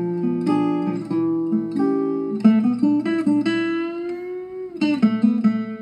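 Intro music on acoustic guitar: plucked notes and chords in a steady run, with one held note that bends slowly in pitch about halfway through.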